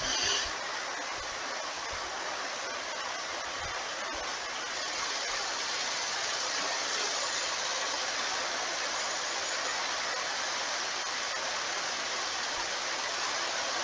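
A steady, even hiss of background noise with no speech, growing a little louder about five seconds in.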